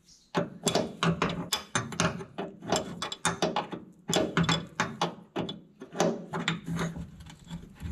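Hand ratchet wrench clicking in quick runs as bolts are loosened, with a short pause about four seconds in.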